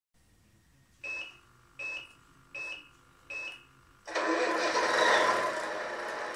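Electronic sound unit of a Tamiya 1/14 Mercedes Actros RC truck giving four short beeps, then playing a diesel engine start about four seconds in. The engine sound peaks briefly and settles into a steady idle.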